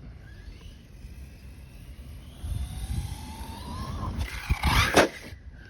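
Arrma 6S RC car's electric motor whining as it speeds up, the pitch rising steadily, followed near the end by a loud rough burst of noise lasting about a second.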